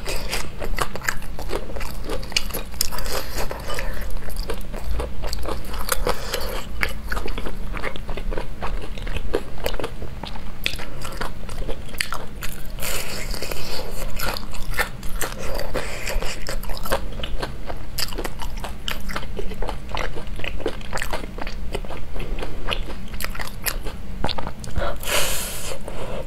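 Crunching bites and chewing of crispy deep-fried lotus root patties: a dense run of sharp crunches as the fried crust breaks between the teeth.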